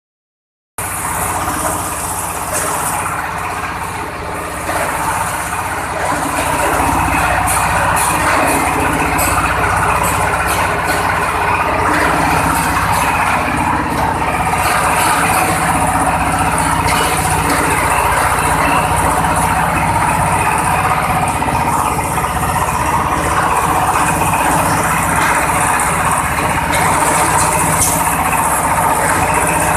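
Coconut husk decorticator running, driven by a small engine, its rotor shredding coconut husks into fibre: a steady engine hum under a continuous rushing, grinding noise. It grows louder about six seconds in as more husks are fed.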